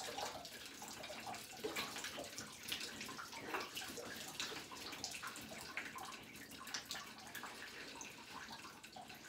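Shower water splashing and dripping in a tub, faint, with many small irregular splashes.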